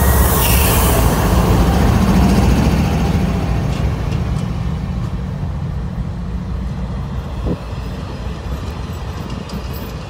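Cars of the Union Pacific Big Boy excursion train rolling past at close range: a heavy low rumble of wheels on rails that slowly fades. A hiss carried over from just before dies away in the first second, and a few faint clicks come later.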